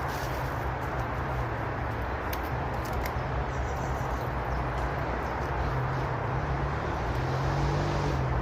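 Steady roar of distant motorway traffic, an even rumbling hiss with no breaks. A few faint clicks sound over it.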